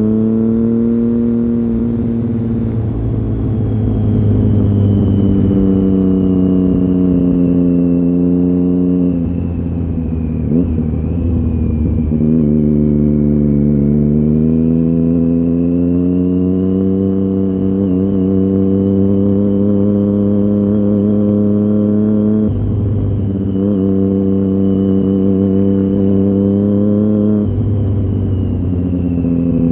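2009 Triumph Street Triple 675's three-cylinder engine through a LeoVince GP 3-2 exhaust with dB-killer fitted, running under way from the rider's seat. The engine note sags about ten seconds in and climbs again, with short breaks about 23 and 28 seconds in.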